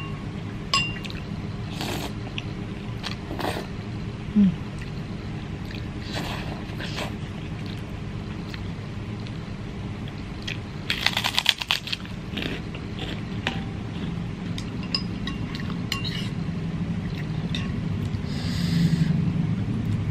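Eating sounds: a metal spoon and chopsticks clinking and scraping against a ceramic bowl of noodle soup, and a burst of crunching about eleven seconds in as a krupuk cracker is bitten. A brief low tone sounds about four seconds in, over a steady low background hum.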